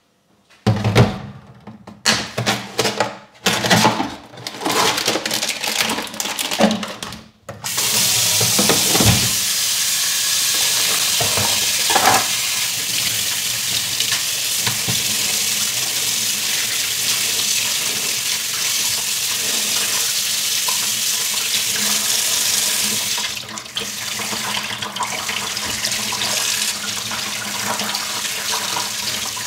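A few seconds of irregular knocks and clatter, then a kitchen tap starts about eight seconds in and runs steadily into a stainless steel sink, splashing over raw chicken pieces being rinsed by hand.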